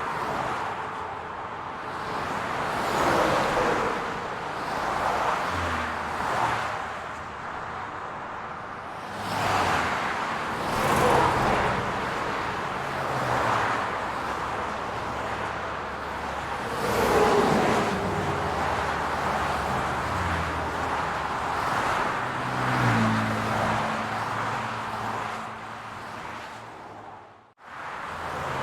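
Steady city road traffic: a hum of car engines and tyre noise that swells as cars pass by every few seconds. The sound drops out abruptly for a moment near the end.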